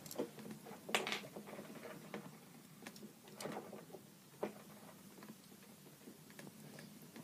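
Small plastic Lego pieces clicking as they are handled and pressed together: a few scattered light clicks.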